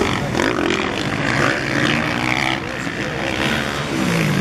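Engines of several motocross bikes revving and running as they race around the dirt track, their pitches rising and falling.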